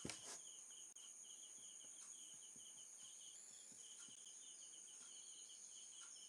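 Faint night crickets chirping in short pulsed bursts a few times a second, over a steady high-pitched ring. A single click sounds right at the start.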